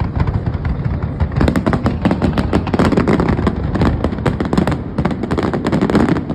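Fireworks going off in quick succession: a dense, continuous run of sharp bangs and crackles over a low rumble.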